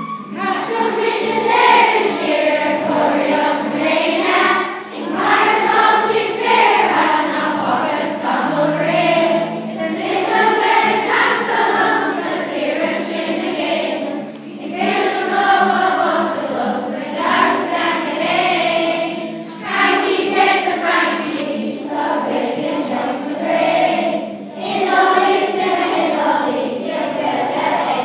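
A children's choir singing a song in Irish in phrases, with brief breaks between lines, over a steady instrumental backing.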